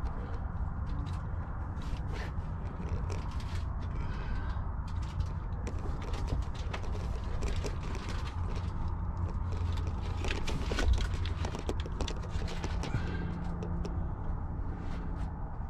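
Scraping, scuffing and clicking of someone crawling over a rock cave floor, with a steady low rumble underneath and a sharper knock about eleven seconds in.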